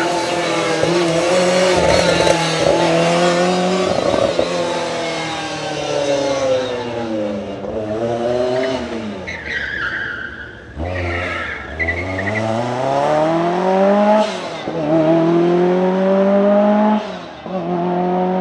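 Lancia Rally 037's supercharged four-cylinder engine revving hard, its pitch climbing and dropping again and again as the driver accelerates and lifts. Around ten seconds in the tyres squeal as the car slides. There is a short cut in the engine sound near the end.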